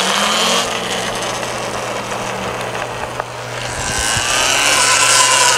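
Talaria Sting R electric dirt bike riding by, its electric motor and chain drive whining over tyre and wind noise. The whine and hiss grow louder about four seconds in as the bike comes close past.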